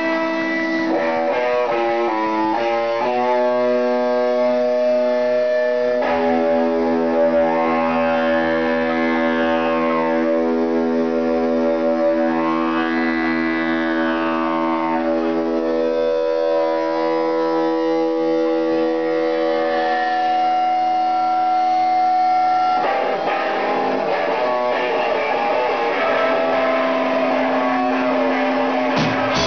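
Live band playing a slow passage of long held chords through effects, changing every few seconds, with two slow sweeping swells in the middle.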